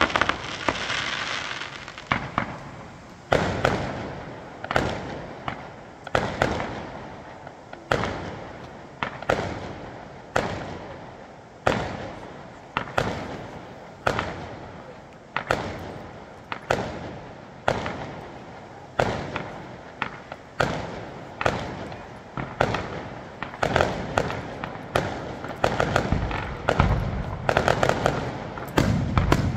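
Aerial firework shells bursting in a display: a sharp bang about every second and a half, each one trailing off in echo. Over the last few seconds the bangs come faster and overlap.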